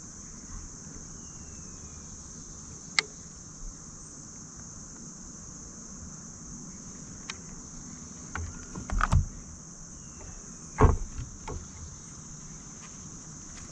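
Steady high-pitched chirring of crickets, with a few scattered knocks and bumps from gear being handled on a kayak, the loudest about eleven seconds in.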